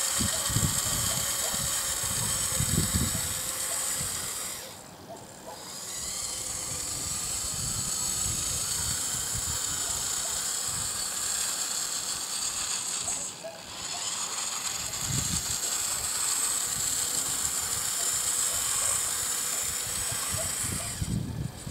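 Radio-controlled Bruder CAT mini wheel loader's electric drive motor and gearbox whining steadily as it drives over gravel. The whine stops briefly twice, about 5 seconds in and again about 13 seconds in.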